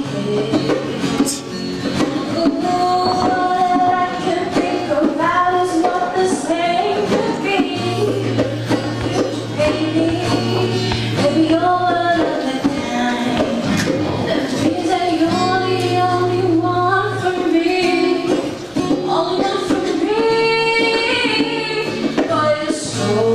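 A teenage girl singing a slow song into a handheld microphone over backing music.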